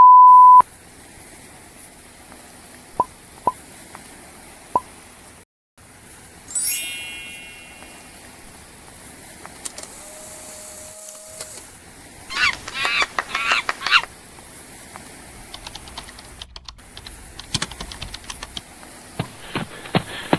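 A string of separate short sound effects: a brief high censor-style beep at the start, a few sharp ticks, a rising sweep, a short steady tone, a burst of rapid pitched calls about halfway through, and a run of clicks near the end.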